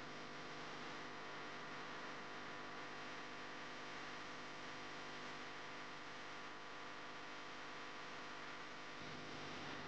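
Faint, steady electrical hum with a hiss underneath, unchanging throughout.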